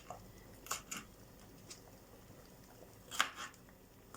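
A few light knife clicks on a cutting board while dicing vegetables, sparse and separate, the loudest about three seconds in.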